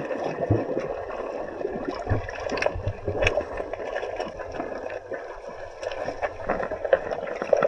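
Mountain stream water running and gurgling over rocks, with irregular sharp clicks and splashes through it.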